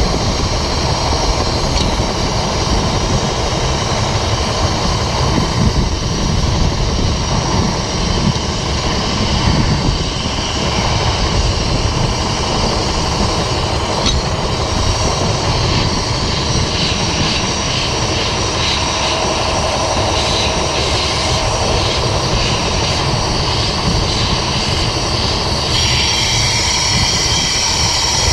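Diesel engine of a crawler dozer running steadily, a loud continuous rumble.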